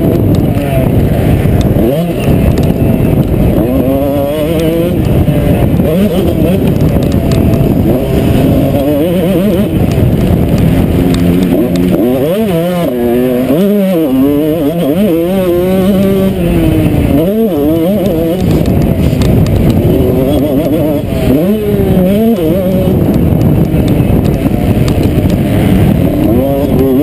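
Motocross bike's engine racing hard, the revs climbing and falling repeatedly with throttle and gear changes, with a few brief cuts in the revs.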